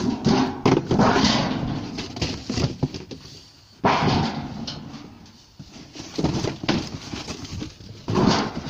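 Footsteps on a wooden deck with knocking, scraping and clattering from cardboard boxes and a metal tub being handled. There are loud thumps about four seconds in and again near the end.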